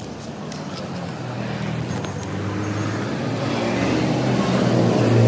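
Street traffic noise with a motor vehicle's engine humming close by, growing louder through the second half and loudest at the end.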